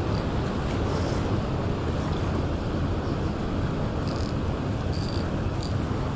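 Steady rush of fast current in the tailwater below a dam, with a few faint ticks in the second half.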